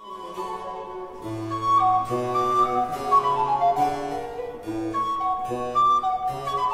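Baroque chamber music: a recorder plays a melody over harpsichord continuo, with a baroque bassoon holding low notes beneath. The music starts abruptly.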